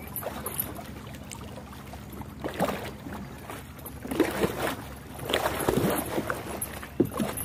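Water splashing in irregular bursts against the side of a small wooden boat as a line is hauled in from the water, louder in the second half, with a few sharp knocks.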